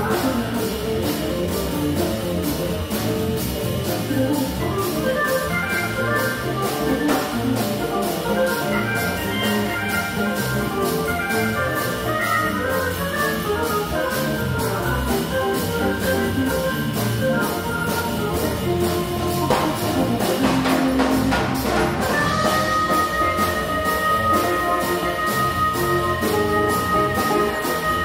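Big band playing jazz: fast runs of melody over a drum kit keeping a steady beat. Late on, a high chord is held steady over the band.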